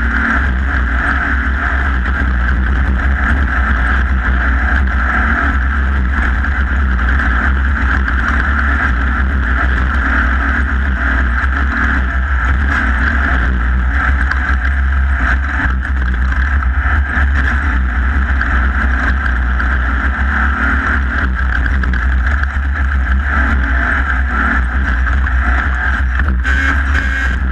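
Onboard sound of an off-road race vehicle running flat out over desert terrain: a steady, loud engine drone with a heavy low rumble and no let-up.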